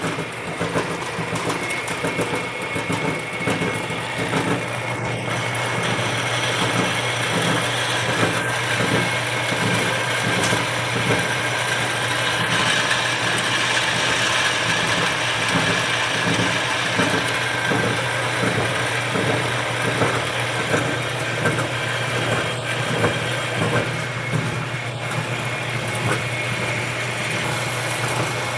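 Vintage Enco horizontal bandsaw running and slowly cutting through metal stock. Its motor and drive give a steady hum with an even rhythmic pulsing, over a hiss from the blade. The running is slow and shaky, from a worn, loosely set-up saw with some slop in it.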